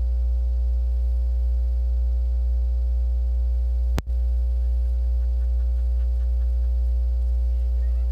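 Loud, steady low electrical hum with faint steady higher tones over it, cutting out for an instant about four seconds in.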